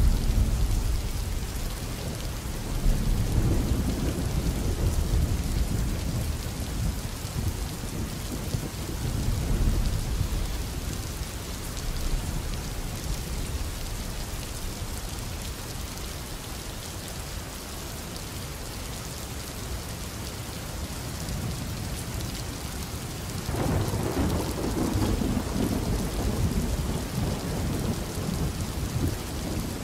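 Steady rain with low rolling thunder that swells and fades. A louder rumble comes in suddenly about 23 seconds in.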